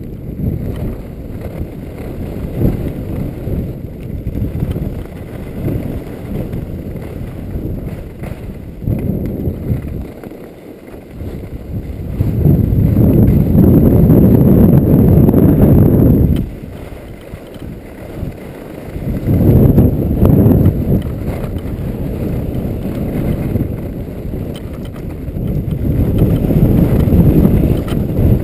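Wind buffeting the microphone and skis running over packed, groomed snow during a fast downhill run, a low rumble that swells into louder stretches and eases off several times.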